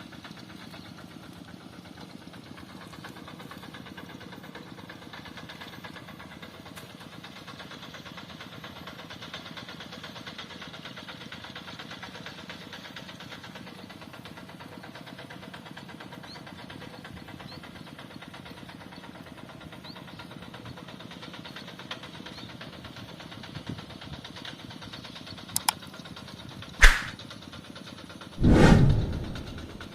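Rice-paddy tractor engine running steadily. Near the end there is a sharp knock, then a louder thump lasting about a second.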